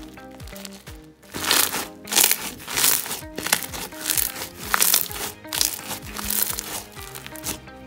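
Light blue slushy slime full of air bubbles being squeezed and pressed by hand, crackling and popping in repeated bursts about once a second. Background music plays under it.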